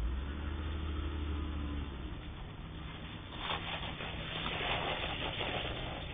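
A car pulling into the driveway: a low engine hum for the first couple of seconds, then a louder hissing, crackling tyre noise from about three and a half seconds in as it rolls up close.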